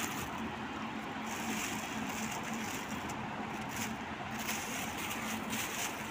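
Thin plastic bags rustling and crinkling in short bursts as a hand opens them and moves through green chillies, over a steady background hiss.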